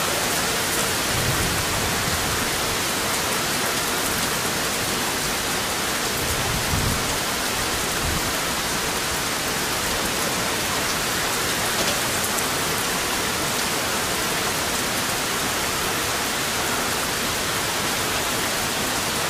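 Steady heavy rain falling: an even hiss of rainfall with scattered drop ticks. Two brief low rumbles come about a second in and about seven seconds in.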